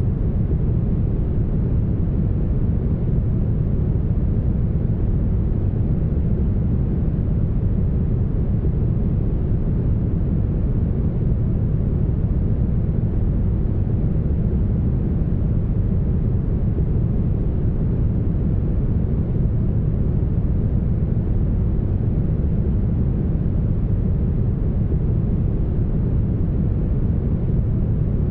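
Steady, smoothed brown noise: an even, deep hiss with most of its weight in the bass, little in the mid range and nothing in the treble, unchanging throughout.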